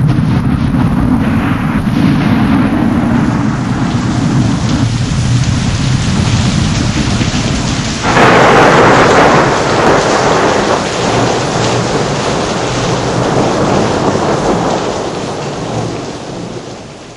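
Thunderstorm with steady rain, and a sudden louder peal of thunder about eight seconds in that slowly dies away; the whole sound fades out near the end.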